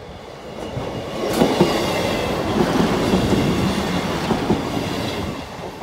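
Class 158 diesel multiple unit passing close by over the level crossing: a rush of wheel and engine noise builds about a second in, stays loud, and begins to fade near the end.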